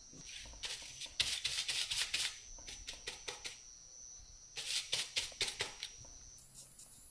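Crackling and light tapping of a thin clear plastic container being handled on a tabletop, in two bouts of quick clicks with a short pause between.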